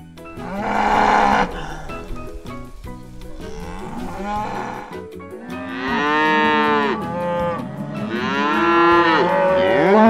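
Domestic cattle mooing several times, long drawn-out calls that bend in pitch, the longest and loudest two in the second half.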